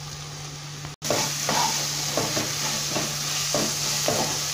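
Chopped onions and ginger-garlic paste sizzling in hot coconut oil in a non-stick kadai while a spatula stirs and scrapes them, in repeated short strokes. About a second in there is a brief cut, after which the sizzle and stirring are louder.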